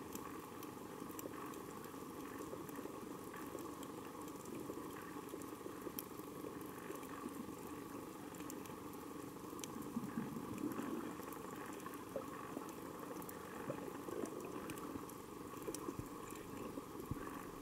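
Underwater coral reef soundscape: a steady low hiss overlaid with a continuous crackle of many small sharp clicks, typical of snapping shrimp, swelling slightly about ten seconds in.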